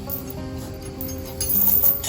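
Background music with held notes, swelling louder and brighter near the end.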